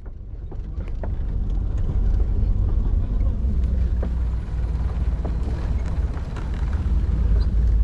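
Open safari jeep driving across a wooden plank bridge: a steady low rumble of engine and rolling that builds over the first two seconds, with scattered light knocks as the tyres go over the planks.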